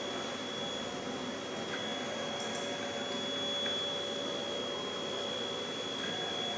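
Steady hum and hiss of operating-theatre equipment and air handling, with a thin continuous high whine and no changes in level.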